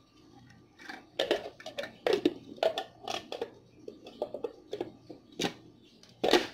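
Hand-blender chopper bowl, lid and packaging being handled: irregular plastic clicks, knocks and rustles, the loudest a sharp clatter near the end. The blender's motor is not running.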